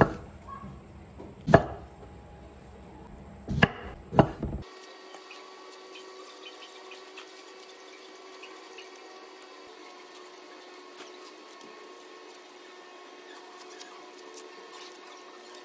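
Kitchen knife chopping through a white radish onto a wooden cutting board: a few sharp knocks in the first four seconds or so. After that, quieter faint scraping and small clicks as a hand vegetable peeler strips the radish's skin.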